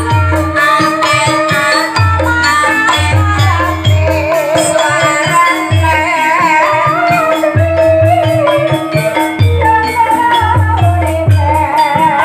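Javanese gambang suling ensemble playing ebeg accompaniment: a wavering melody over repeated low drum strokes and a steady held tone.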